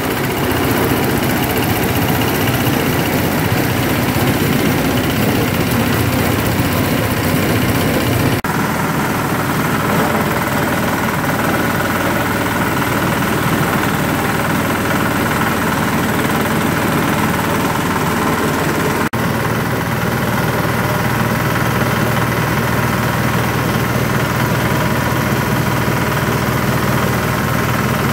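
Stationary diesel engine driving a grass and forage chopper, running steadily while leaves and stalks are fed in and shredded. The sound changes abruptly twice, about a third and two-thirds of the way through.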